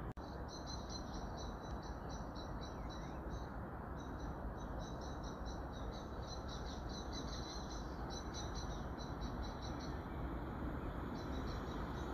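A bird chirping in quick runs of high, evenly spaced notes, about five a second, with short pauses between runs, over a steady low outdoor rumble.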